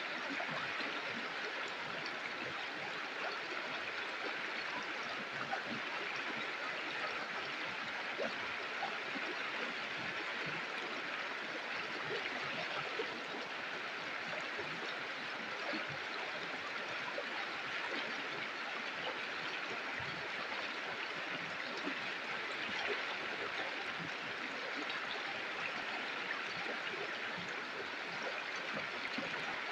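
Flowing river: water running steadily over rocks, with small splashes and gurgles.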